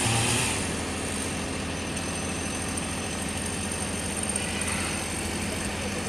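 An engine idling steadily. About half a second in, a louder, higher-pitched running sound eases off.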